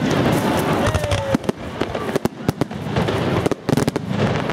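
Large aerial fireworks display: a rapid, irregular string of shell bangs and crackles, the bangs echoing back off nearby cliffs.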